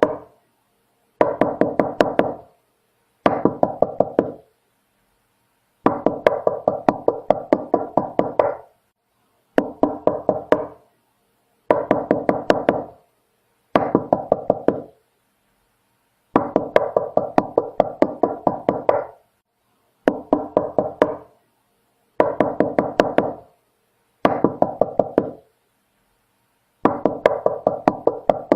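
Knocking on a door in repeated bouts of quick raps, about four or five a second. Each bout lasts one to three seconds, with short silent pauses between.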